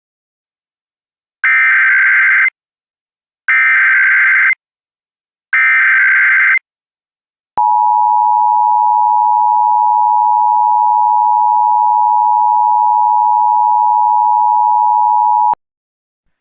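Emergency Alert System header for a Child Abduction Emergency (AMBER Alert): three bursts of SAME digital data about a second each, then the two-tone EAS attention signal held steady for about eight seconds and cutting off sharply. It signals that an emergency alert announcement is about to follow.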